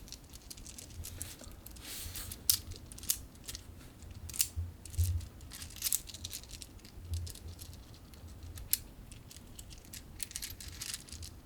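Infinity Cube fidget toy being handled and flipped: irregular sharp clicks and taps, with rustling in between.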